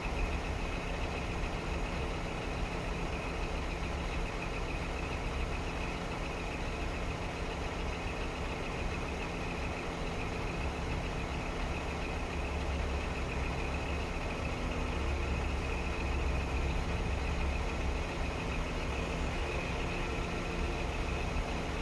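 Scania P380 truck's inline-six diesel engine idling steadily, its low rumble rising slightly in level a little past the middle, while the engine drives the hydraulic loader crane as its boom unfolds.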